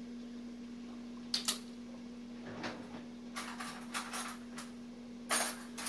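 Scattered light clicks and taps of a measuring spoon and kitchen utensils being handled and set down on a counter, the loudest a short clatter about five seconds in, over a steady low hum.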